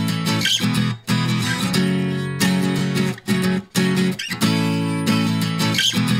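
Background music led by a strummed acoustic guitar, its chords changing every second or so.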